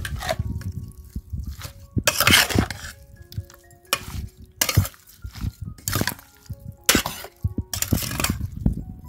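Steel serving spoon scraping and clinking in a stainless-steel bowl as raw fish with spices and oil is stirred together, in a series of irregular strokes about once a second, with a longer scrape about two seconds in. Soft background music with held notes plays underneath.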